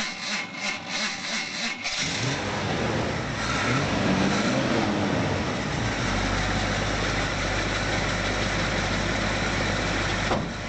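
Engine cranking over on the starter with an even chugging rhythm, catching about two seconds in after a hard start, revving briefly, then settling into a steady idle.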